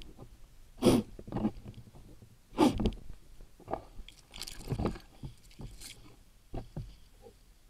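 Irregular short crunches and rustles of dry heather and grass as a player moves through the undergrowth carrying a bow with a camera mounted on it, mixed with handling knocks on the bow.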